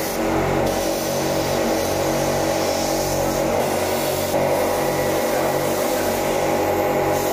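Handheld electric cup-type paint spray gun running steadily as it sprays body paint onto a performer's skin, a continuous hiss with a steady motor hum.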